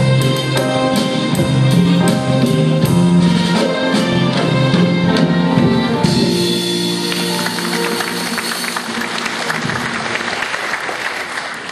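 A live band plays the closing bars of the song and ends about six seconds in; audience applause follows and fades away near the end.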